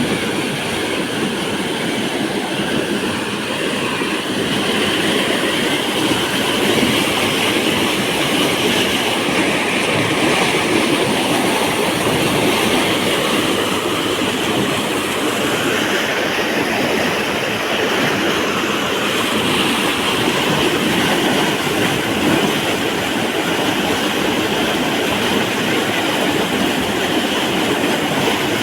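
Water released through a dam pouring out in a loud, steady rush.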